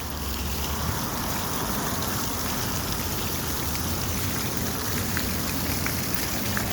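Water fountain running, its falling water splashing steadily into the basin.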